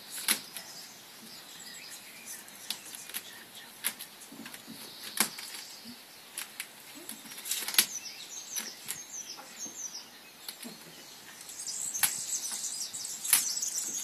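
Irregular sharp clicks and crackles of vinyl wrap film being stretched and pressed onto a car door with a squeegee. Birds chirp in the background, more densely near the end.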